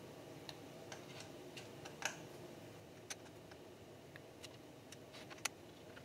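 Faint, scattered light clicks and taps of a screwdriver and the Mac Pro 2013's small metal parts being handled during disassembly, with two sharper clicks about two seconds in and near the end, over a steady low room hum.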